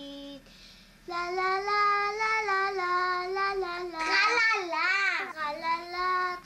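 A young girl singing a song unaccompanied in Swabian German dialect, holding long wavering notes, with a high swooping glide up and down about four seconds in.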